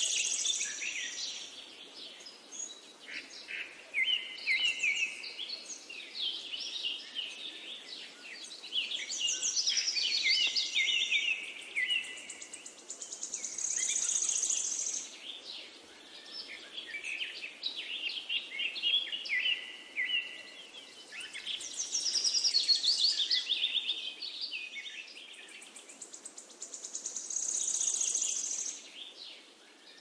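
Several forest songbirds singing, their high phrases overlapping and swelling every four or five seconds, over a faint steady hiss.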